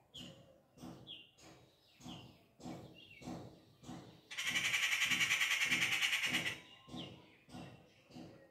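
Rufous treepie calling: a run of short repeated call notes, some sliding down in pitch. In the middle a much louder harsh, fast-pulsed buzz lasts about two seconds.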